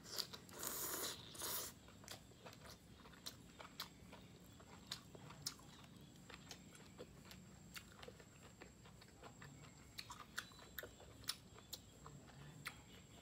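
Close-up mouth sounds of a person biting into and chewing a grilled beef roll wrapped around enoki mushrooms and bell pepper. A louder noisy burst comes in the first two seconds as the bite goes in, then soft wet clicks and small crunches of chewing.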